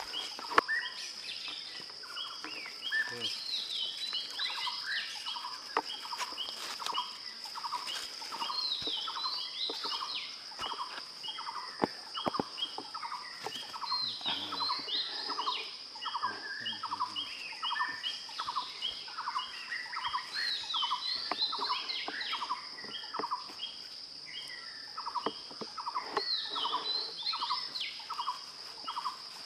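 Forest birds chirping in a busy, repeating chorus of short notes, over a steady high-pitched insect drone, with a few sharp clicks.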